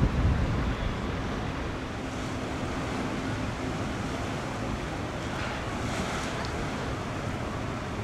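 Wind buffeting the microphone, hardest in the first second, over a steady wash of harbour and sea noise, with a faint low hum for a few seconds in the middle.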